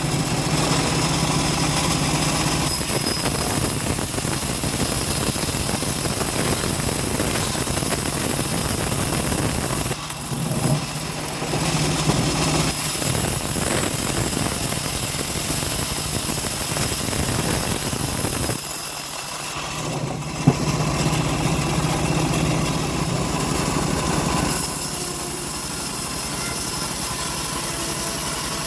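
Engine of a homemade band sawmill running steadily while sawing teak, with two short dips in level, one about a third of the way in and another just past the middle, and a single sharp click right after the second dip.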